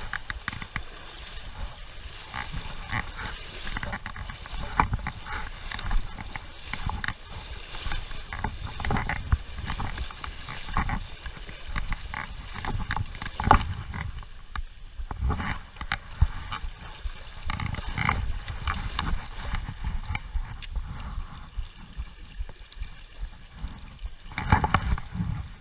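A person wading across a river: water sloshing and splashing around the legs, with irregular knocks and thumps, at a few strokes a second, through the whole crossing.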